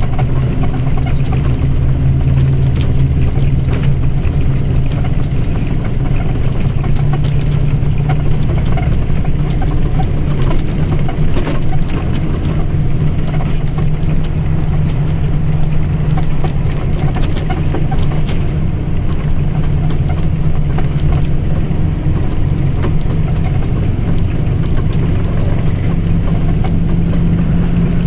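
Mercedes-Benz OF1722M bus's diesel engine running steadily, with light rattling over it; its pitch climbs slightly near the end.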